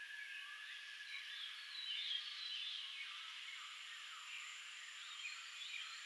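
Forest chorus of many small chirping, whistling animal calls overlapping one another. A steady high-pitched tone joins about three and a half seconds in.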